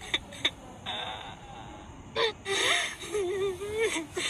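Horror sound effect of a ghostly voice: short choppy gasps and whimpers, a breathy hiss about a second in, then a wavering, sliding moan in the last second or so.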